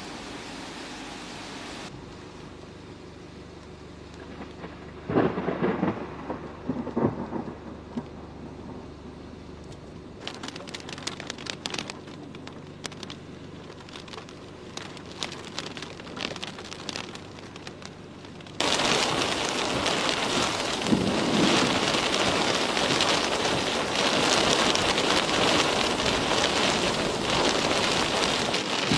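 Thunderstorm: loud thunder rumbles about five to seven seconds in, then scattered raindrops ticking from about ten seconds in. Just past halfway it switches suddenly to heavy, steady rain, heard from inside a car.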